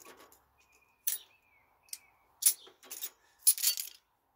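Sharp metallic clinks and jangles of small metal tools or parts being handled, a handful spread over a few seconds, with the longest cluster near the end.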